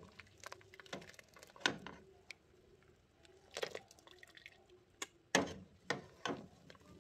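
Water dripping and splashing back into a pot as boiled potato pieces are lifted out in a wire-mesh strainer, with a handful of sharper splashes in the second half.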